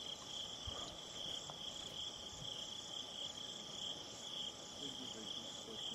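Steady, high-pitched trilling of an insect chorus.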